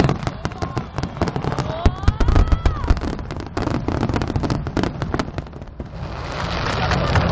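Aerial fireworks bursting in rapid succession, with many sharp bangs and crackles. A few whistling shells rise in pitch about two seconds in, and a dense crackling swells near the end.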